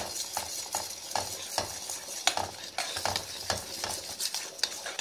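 A spoon scrapes around a pot of thick, hot sugar, honey and spice syrup, cooked down for cough drops, in short strokes about two or three times a second. A steady high hiss runs under the strokes.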